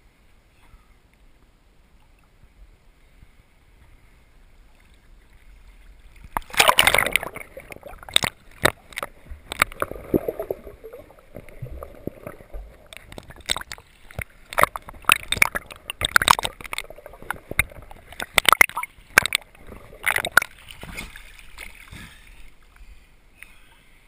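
Sea water splashing and sloshing around an action camera's waterproof housing as it is moved through shallow water at the surface. After a quiet start, a run of sharp, irregular splashes and slaps begins about six seconds in.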